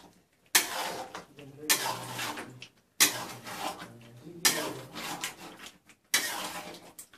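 Metal spatula scraping and clanking around an aluminium kadai while stirring thick chicken masala gravy: regular strokes about every second and a half, each starting with a sharp clank against the pan and trailing off in a scrape.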